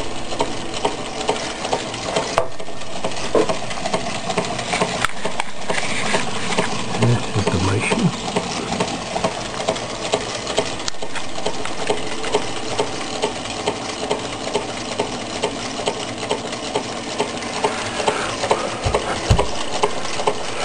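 Meccano-built Stirling engine running, its metal cranks, linkages and gears clicking and rattling steadily as it drives a geared Ferris wheel.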